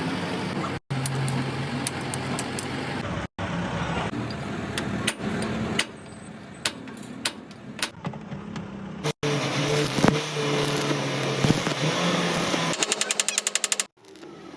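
Metalworking noise, most likely electric arc welding: a steady crackling hiss over a low hum. It is broken by several sudden cuts, and near the end there is a fast even ticking.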